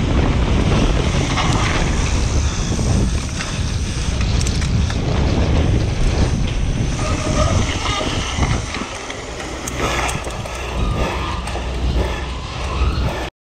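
Wind buffeting an action camera's microphone as a downhill mountain bike rolls over rough tarmac, with tyre rumble and the frame and chain rattling in small clicks. The noise eases somewhat in the second half and cuts off suddenly just before the end.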